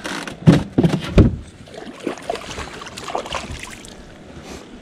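Three loud thumps about a third of a second apart in the first second and a half, then lighter scattered knocks: things knocking on a small fiberglass fishing boat's hull and deck.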